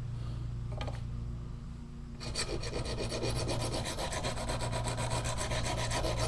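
A small hand file scraping along the edge of a steel single-bevel broadhead in quick, even strokes, starting a little over two seconds in, to sharpen the blade.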